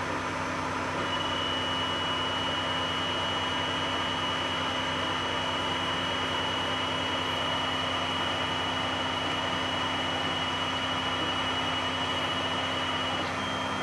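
Anet A8 3D printer running while it prints a small test square: a steady hum from its cooling fans. A thin, high, steady whine starts about a second in and stops just before the end.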